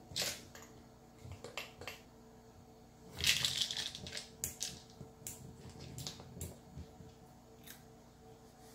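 A cat's paw knocks a small plastic treat-dispenser toy across a wooden floor, so the toy clatters and the dry treats inside it rattle. There is a sharp knock at the start and a few clicks, then a longer rattling clatter about three seconds in, followed by scattered clicks.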